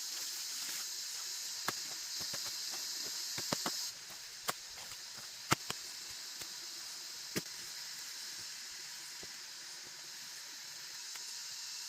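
A steady high-pitched hiss, which drops in level suddenly about four seconds in, with about half a dozen short sharp knocks scattered through it at irregular intervals.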